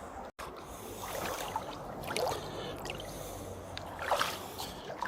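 Shallow river water running over the shore, with splashes and sloshing a few times, loudest about four seconds in, as a hand reaches in and pulls things out of the water.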